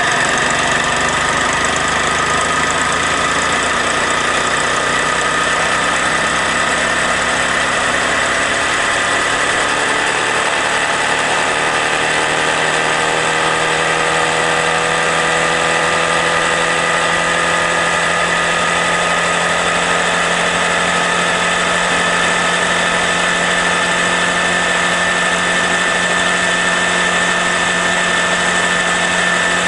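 Honda Grom's 125 cc single-cylinder engine running under way, its pitch climbing slowly for several seconds as the bike gathers speed and then holding steady, over a constant rush of wind noise.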